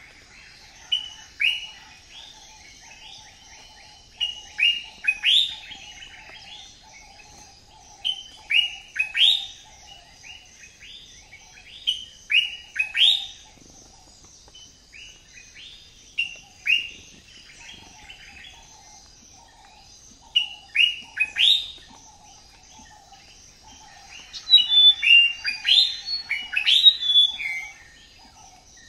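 Aviary birds calling in clusters of short, sharp, falling chirps every few seconds, thickening into a busy run of calls near the end. A faint, steady, high-pitched hiss of other birds or insects runs underneath.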